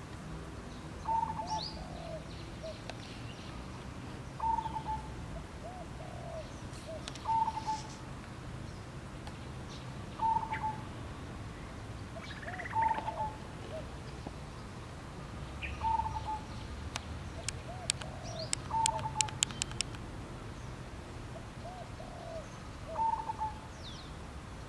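A bird repeats a short call phrase about every three seconds: a higher note followed by a few lower, rolling notes. About three quarters of the way through comes a quick run of sharp clicks.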